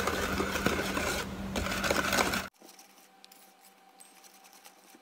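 Spatula stirring flour into wet cake batter in a stainless steel bowl: a continuous scraping, stirring noise over a low steady hum. About halfway through it cuts off abruptly to near silence with only a faint steady tone.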